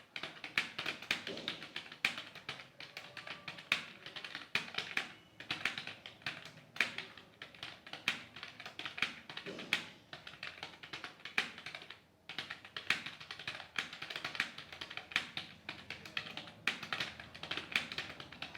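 Fast, continuous typing on a mobile phone's keyboard: dense, irregular taps and key clicks, with a brief pause about twelve seconds in.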